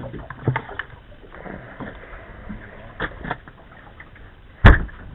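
Scattered light knocks and handling clatter on a boat, with one loud sharp thump near the end.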